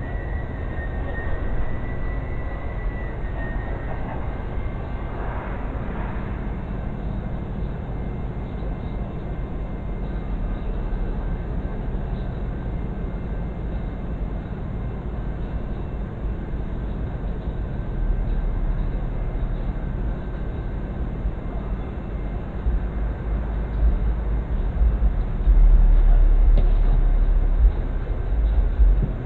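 Vehicle engine idling: a steady low rumble with a hum, growing louder and heavier in the last few seconds.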